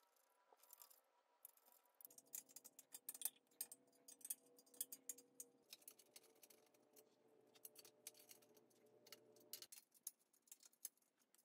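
Near silence broken by faint, scattered clicks and ticks of small metal parts and tools being handled while an aluminium extrusion frame is bolted together, with a faint steady hum from about two seconds in to near the end.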